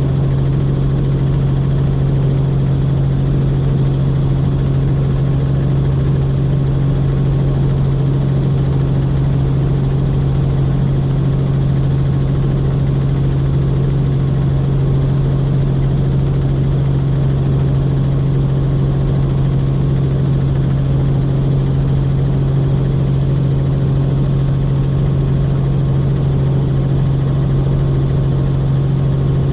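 Helicopter in steady cruising flight: a constant loud drone with a strong low hum that does not change.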